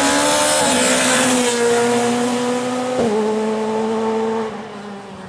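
A Skoda Fabia S2000 rally car's engine running at high revs as the car drives past at speed and away. Its pitch drops sharply twice, about a second in and three seconds in, at gear changes. It grows fainter near the end as the car moves off.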